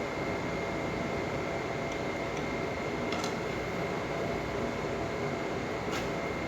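Steady mechanical background noise with a faint high whine, and a few light clicks scattered through it.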